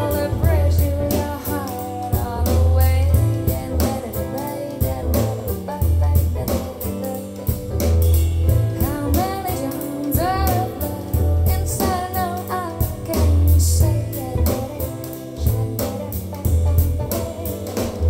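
A smooth jazz song with a sung vocal, guitar, bass and a steady drum beat, played through JBL Synthesis 1400 Array BG loudspeakers and picked up by a microphone in the room.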